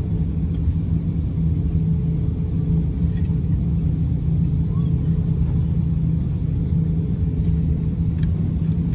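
Steady low rumble inside the cabin of an Airbus A350-900 as it taxis, its Rolls-Royce Trent XWB engines at low power, with a faint steady hum above the rumble.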